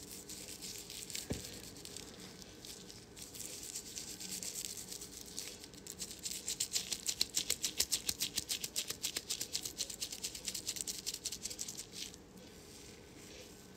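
Gloved fingers rubbing purple anti-yellow shampoo into a dry lock of hair: a quick, even rustling of about five strokes a second that builds from about four seconds in and stops shortly before the end.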